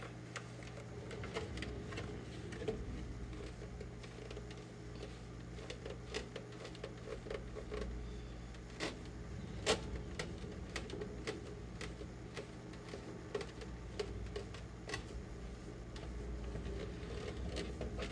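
Shop-towel rag, wet with paint, rubbed and twisted over a hollow ABS plastic Stormtrooper armor piece, with scattered light clicks and knocks as the plastic is handled. A steady low hum runs under it.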